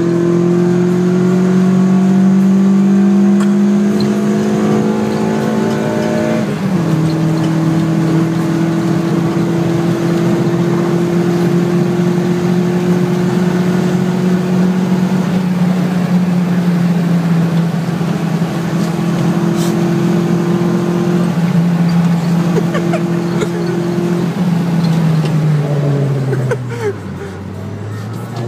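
Car engine heard from inside the cabin, revving up under acceleration, dropping sharply in pitch at a gear change about six and a half seconds in, then holding a steady high note before easing off and falling near the end as the car slows.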